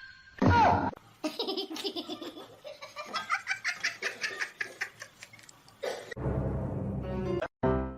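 Laughter in a long run of quick, short, pitched bursts, about four or five a second, after a brief loud cry about half a second in. Piano music comes in near the end.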